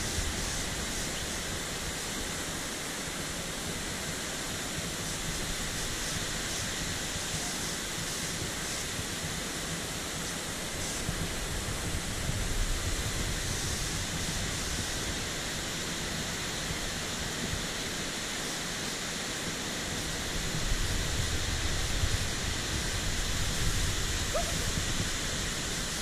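Steady rushing roar of a tall waterfall, with low rumbles on the microphone about halfway through and again near the end.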